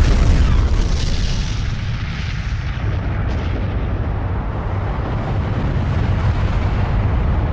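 Explosion sound effect: a loud, continuous rumble with crackle, strongest at the start and easing a little.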